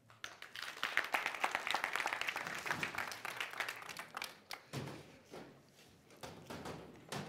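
Audience applause that swells within the first second and dies away after about four seconds, leaving scattered claps.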